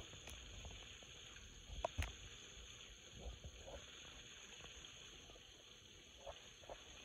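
Chicken pieces deep-frying in hot oil in a frying pan: a faint, steady sizzle with a few sharp pops of spattering oil, the loudest about two seconds in.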